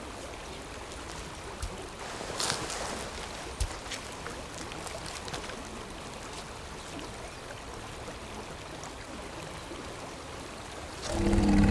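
Steady rush of flowing river water, with a few brief rustles and clicks a couple of seconds in. Near the end a much louder low droning hum starts abruptly.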